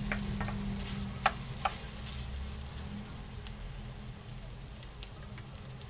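Cubed pork sizzling as it is sautéed in a nonstick wok, stirred with a wooden spatula that knocks and scrapes against the pan a few times in the first two seconds. A low steady hum runs underneath.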